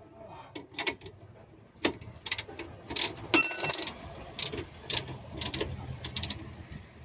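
Metal parts and tools clinking and knocking during hands-on work on a car's rear suspension, with one loud ringing metallic clang about three and a half seconds in.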